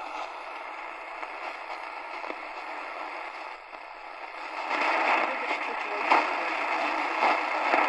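Eton Elite Executive portable radio on the AM medium-wave band, its speaker giving a steady hiss of static from a weak, distant station. The noise swells louder about two thirds of the way through as the signal is brought up with a passive loop antenna, leaving voices barely picked out under the static.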